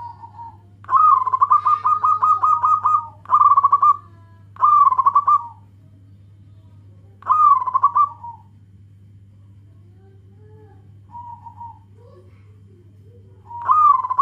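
Zebra dove (local perkutut) cooing: a long rolling phrase of rapid coo notes starts about a second in, followed by several shorter coo phrases a few seconds apart. A steady low hum runs underneath.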